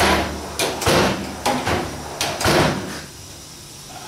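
Metal drawers of a Husky tool chest, running on ball-bearing slides, being pulled open and pushed shut several times, with knocks as they close. It stops after about three seconds.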